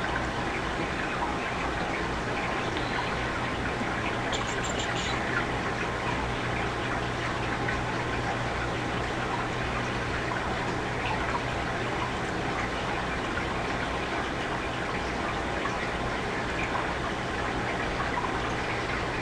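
Steady background hiss with a low electrical hum, the noise floor of a home recording microphone, with a brief faint clicking about four seconds in.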